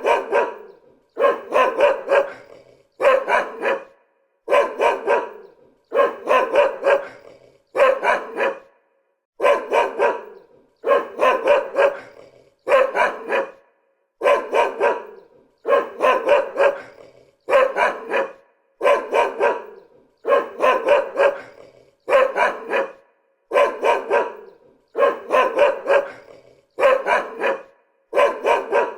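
A dog barking over and over in short runs of a few quick barks, one run every second and a half or so, with brief silent gaps between them. The evenly repeating pattern suggests a looped recording.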